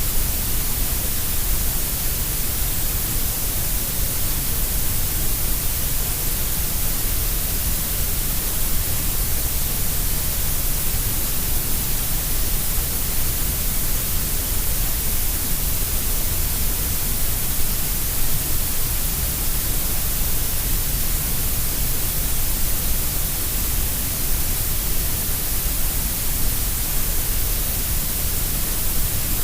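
Steady, unbroken synthetic grey noise: a dense hiss with more weight in the deep lows and the highs than in the middle, shaped to sound equally loud at every pitch.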